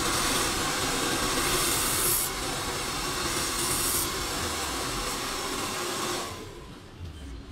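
Handheld hair dryer blowing steadily while drying hair. Its sound drops away for about a second near the end, then comes back.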